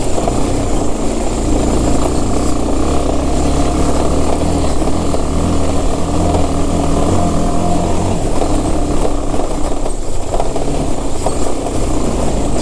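Motorcycle engine running steadily while ridden over a rocky dirt trail, its low note easing a little about eight seconds in.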